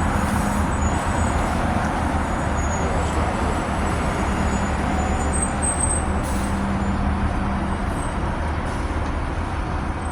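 Steady road-vehicle rumble with a broad hiss, running evenly without a break.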